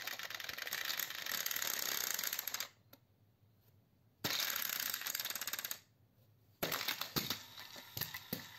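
Geared electric motors of two coupled battery-powered Plarail toy locomotives whirring as they drive along plastic track, stopping twice for a second or so. Near the end comes a clatter of plastic knocks as the trains tumble off the raised track onto the rug.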